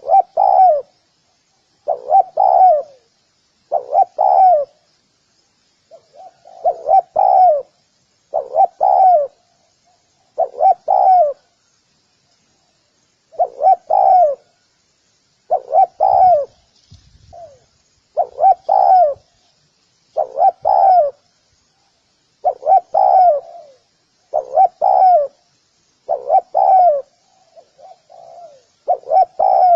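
Spotted dove cooing, repeating its low, throaty phrase about once every two seconds, with a couple of brief pauses between phrases.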